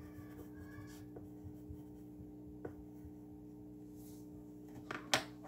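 Pencil scratching lightly on paper as a drawing is sketched, over a steady low hum. A couple of sharp clicks about five seconds in are the loudest sound.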